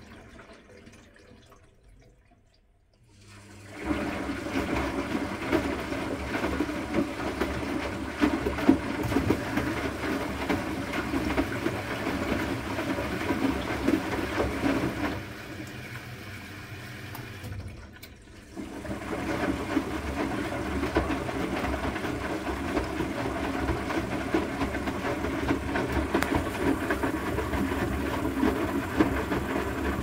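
Asko 12605 front-loading washing machine in its final rinse: water sloshing as the drum tumbles the towels, in two long turns of about twelve seconds each, with brief pauses where the drum stops and reverses.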